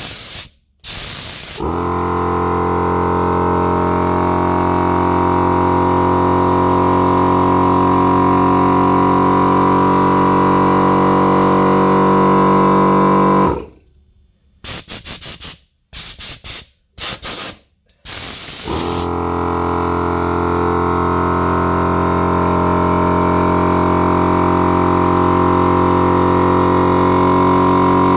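Portable air compressor's motor running steadily as it refills its tank, stopping and then starting again. Short hissing blasts from an air blow gun come just before it starts and several times while it is stopped, the air drawn off making it kick back in.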